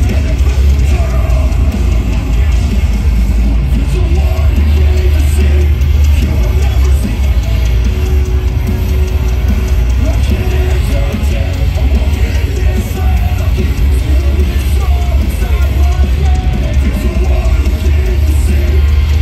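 Live metalcore band playing heavy distorted guitars, bass and drums, with shouted vocals over the top. Heard from the crowd with a heavy, booming low end.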